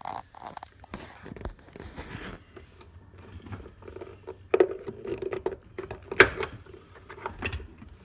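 Handling noise of hands working at a truck door's wiring boot and its plastic clip: irregular scraping, rustling and small clicks, with a louder scrape about halfway through and a sharp click about six seconds in.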